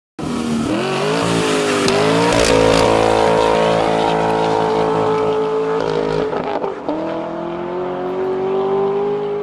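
Race car engine at high revs, played as an intro sound effect. It starts suddenly, climbs in pitch, sags, then jumps up about two and a half seconds in and holds. Near seven seconds it drops sharply and climbs again.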